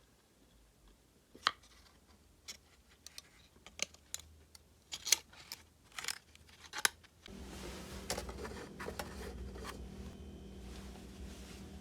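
A string of irregular sharp clicks and snips over several seconds, then a steady low hum with a faint hiss that starts abruptly about seven seconds in.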